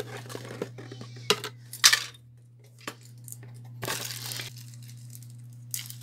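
Cardboard packaging being handled while a CPU cooler is lifted out of its box: a few sharp knocks and taps, the loudest about two seconds in, then a brief rustle of a small plastic accessory bag about four seconds in. A steady low hum lies underneath.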